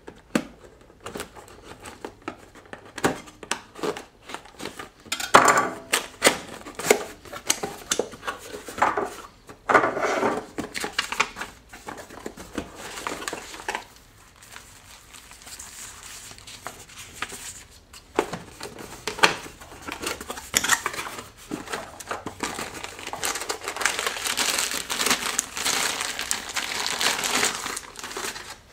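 A cardboard box being opened and unpacked by hand: flaps and packing handled with irregular rustling, crinkling and small clicks, and paper manuals shuffled. Near the end a long, denser crinkling as the foam wrapping is pulled off the camcorder.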